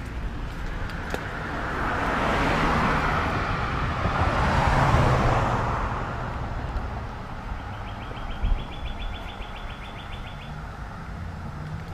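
A car passes on the road alongside, its tyre and engine noise swelling to a peak about halfway through and then fading. Later comes a fast, even high trill lasting a few seconds, and a single thump over a low steady rumble.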